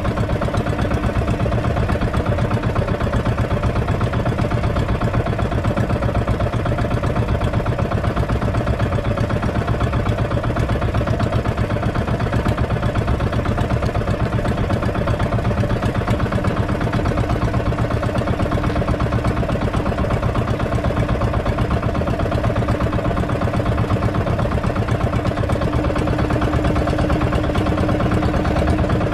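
Small engine of a motorized outrigger fishing boat running steadily at an even speed, with a fast, regular firing pulse.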